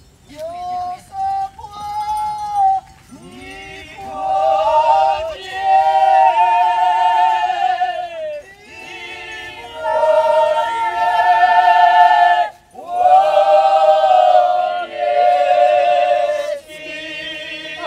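Górale highlanders singing a folk song unaccompanied in several voices: long, high held notes with vibrato, sung in phrases of a few seconds with short breaks between them.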